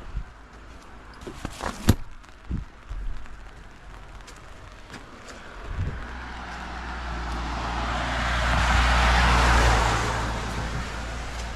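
A few sharp knocks, then a road vehicle passing by: its tyre and engine noise swells to its loudest about two-thirds of the way through and then fades.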